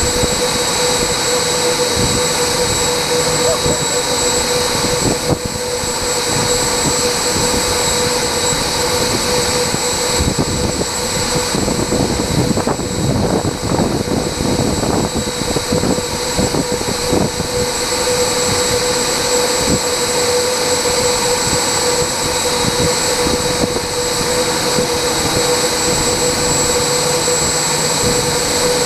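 Jets Munt 200 model jet turbine in an RC F-15 Eagle running steadily at idle, a high whine over a lower hum. Near the end the whine starts to rise as the turbine begins to spool up.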